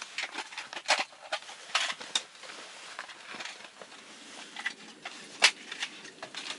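Hands rummaging in a small tackle box: irregular clicks, rustles and light knocks, with one sharp click about five and a half seconds in.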